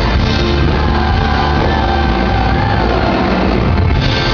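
Live pop-rock band playing loud, with guitars, drums and a sung lead vocal, heard from among the audience.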